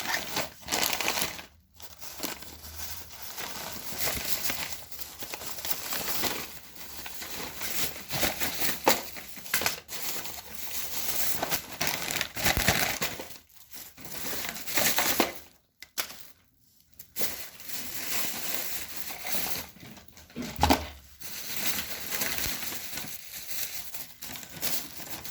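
Packaging crinkling and rustling as it is handled and opened, in irregular bursts with a few short pauses.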